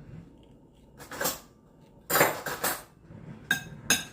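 Kitchen utensils against dishes as food is dished up: a spoon scraping twice in a pot or plate, then a few sharp ringing clinks of metal on crockery near the end.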